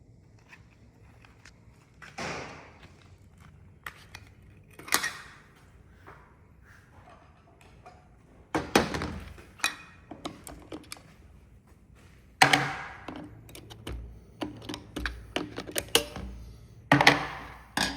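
Handling noise from a plastic remote control: scattered knocks and clicks of plastic on a hard surface, sparse at first and coming thicker in the second half.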